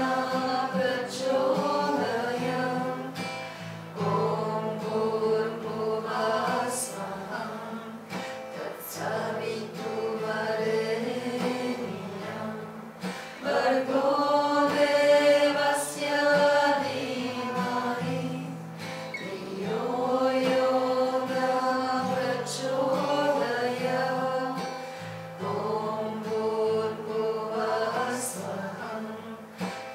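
Voices chanting a devotional mantra together in long, drawn-out sung phrases, to a strummed acoustic guitar.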